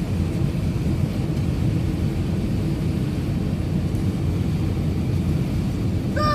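Steady low rumble of airliner cabin noise.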